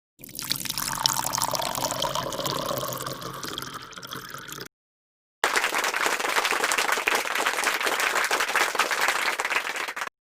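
Two separate sound-effect clips cut back to back, with about half a second of dead silence between them: first a water-like noise with some faint tones in it, then a steady, even hiss.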